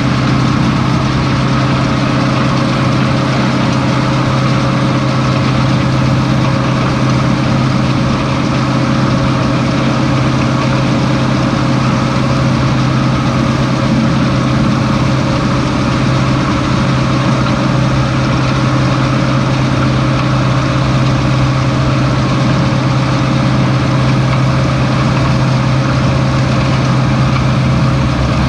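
Tractor engine running at a steady speed, pulling a fixed-chamber round baler as it picks up barley straw; a loud, even drone that does not change.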